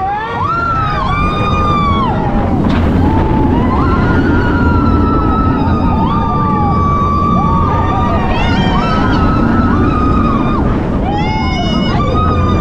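Bolliger & Mabillard dive coaster train running at speed, with a steady low rumble of wind and wheels. Riders scream over it in long cries that rise and fall, again and again.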